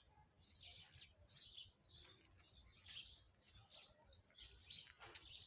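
Birds chirping faintly in a steady run of short, high chirps, about two a second.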